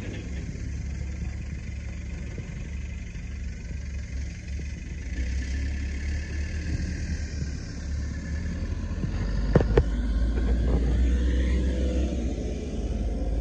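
1999 Nissan Frontier pickup's engine idling steadily, getting louder in the second half as the sound comes from closer to the truck, with two sharp knocks about nine and a half seconds in.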